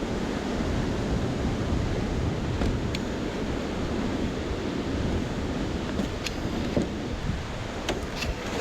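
Steady rumbling wind noise buffeting the microphone, with a few faint clicks.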